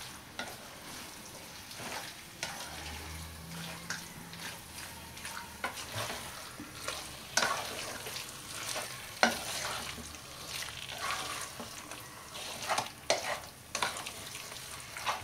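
A spatula stirs and scrapes chicken pieces coated in gongura (sorrel leaf) paste and masala around a nonstick pan, over a soft frying sizzle. The scrapes and taps come irregularly, and the sharpest fall about seven and nine seconds in.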